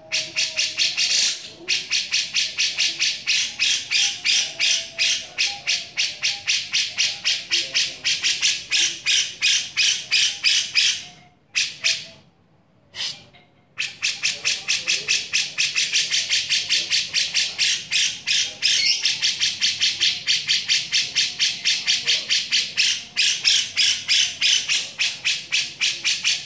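Grey-cheeked bulbul (cucak jenggot) in full 'beset': a fast, unbroken run of harsh, rasping notes, several a second. It pauses briefly about a second and a half in and for about two seconds around the middle.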